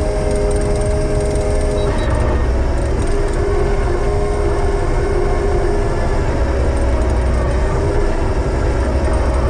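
Heavy logging machine's engine running steadily, with a steady whine over a low rumble that dips slightly in pitch about two seconds in.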